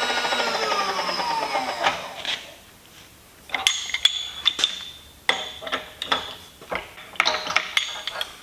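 Vertical milling machine's spindle coasting to a stop, a whine falling in pitch over about two seconds. After that come sharp metallic clinks and knocks of a tool change at the spindle.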